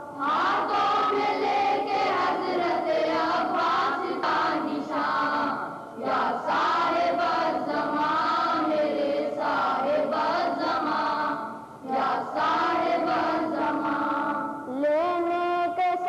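Boys' choir singing a devotional Urdu chorus (a manqabat) together, in long sung phrases with short breaths between them, about every six seconds.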